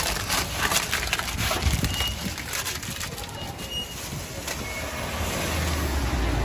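Paper crinkling and rustling as a doner kebab wrap is rolled up in wrapping paper, with quick crackles thickest in the first couple of seconds. A low rumble rises near the end.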